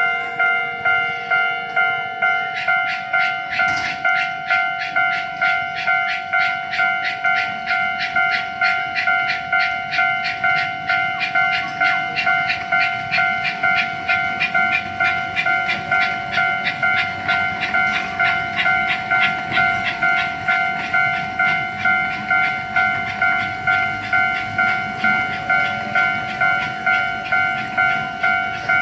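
Japanese level-crossing warning bell ringing its kan-kan alarm: a loud, steady, ringing tone struck over and over at about two strokes a second.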